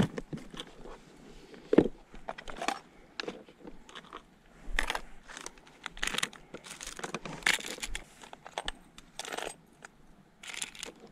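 A plastic tackle box handled and opened: a string of clicks and knocks from the lid and trays, with metal spinner spoons clinking and plastic lure packets crinkling as lures are sorted. The loudest knock comes about two seconds in.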